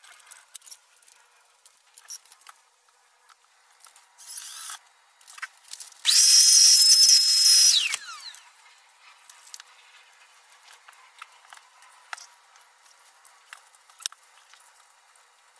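Cordless drill drilling holes through the wooden box: a short burst, then about two seconds of steady running with a high motor whine whose pitch falls away as the drill stops. Light clicks and handling knocks around it.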